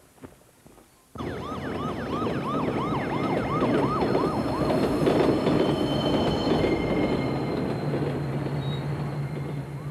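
Elevated train rumbling over a steel trestle, starting suddenly about a second in, with a siren yelping in quick rising-and-falling sweeps over it. Toward the end the sweeps fade and a steady low engine drone takes over.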